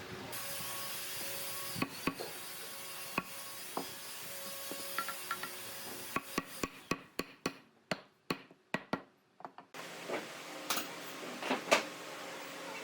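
Woodworking hand-tool work on wood: scattered knocks, taps and rubbing over a faint steady hum, with a quick run of sharp clicks about halfway through.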